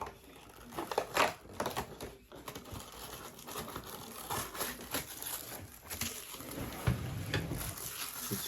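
Toy packaging being crinkled and torn open by hand: irregular rustling and crackling.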